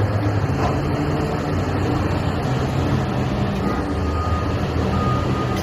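Large wheel loaders' diesel engines running steadily under load. In the second half, a faint high beep repeats a few times.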